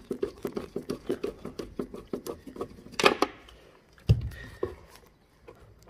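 A T25 Torx hand driver clicking quickly and evenly, about five clicks a second, as it undoes the small screws of a car's rear light cluster. There is a louder click near the three-second mark and a low thump about a second later.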